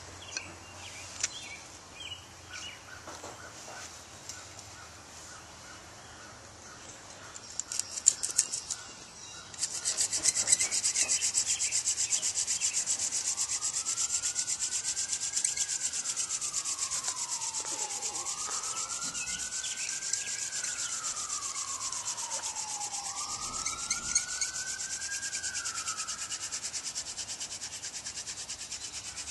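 Hand-drill fire by friction: a spindle tipped with a Dame's Rocket stalk plug is spun back and forth between the palms, its tip grinding into a wooden hearth board in a fast, steady rubbing. It starts about a third of the way in, after a few light handling clicks. Behind it a faint tone sweeps up and down three times.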